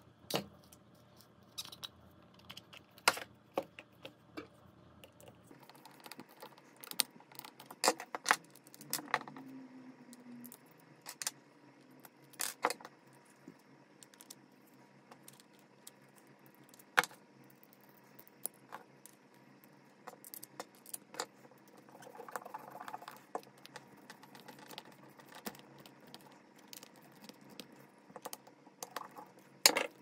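Scattered clicks, knocks and small rattles of hard plastic parts handled and fitted together as an L21-30 twist-lock plug's wired insert goes into its housing and the plug is closed up, with one louder knock about halfway through.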